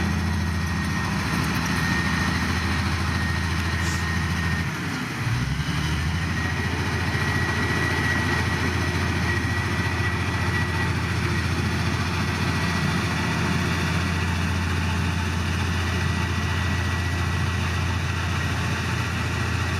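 Heavy diesel engine of earthmoving machinery running steadily, with a thin high whine over it; the engine note dips briefly about five seconds in.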